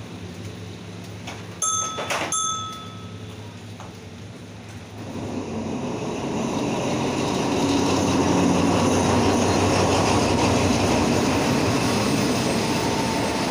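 Diesel-hauled passenger train coming along the platform: its rumble builds from about five seconds in and holds steady as the coaches roll past. Two short metallic rings sound about two seconds in.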